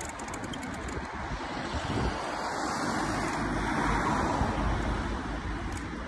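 Street traffic noise: a passing car's tyre and engine noise swells from about two seconds in and eases slightly near the end.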